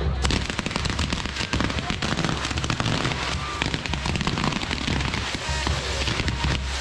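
Castillo fireworks tower firing: its spark fountains and spinning wheels fizz and crackle with a dense stream of rapid pops. Band music and crowd voices sound underneath.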